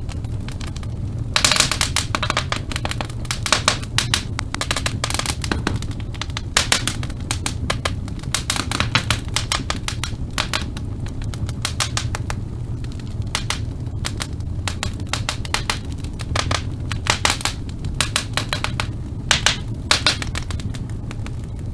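Wood fire in a fireplace crackling and popping, with many irregular sharp pops over a steady low rumble of the burning.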